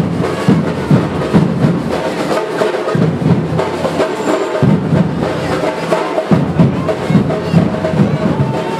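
Batucada drum group playing: massed percussion with bass drums beating about twice a second.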